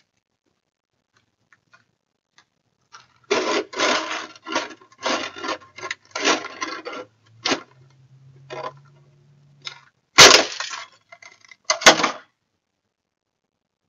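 Plastic snow shovel scraping snow off a concrete sidewalk in a run of quick strokes. About ten seconds in comes a loud crack as the shovel breaks, then a second sharp clatter a couple of seconds later.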